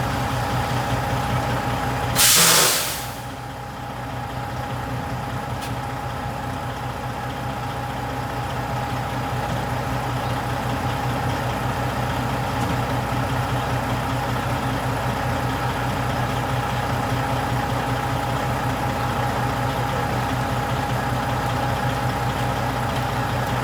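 Diesel semi-truck engine idling steadily, with one loud, short hiss of compressed air from the air brakes a little over two seconds in.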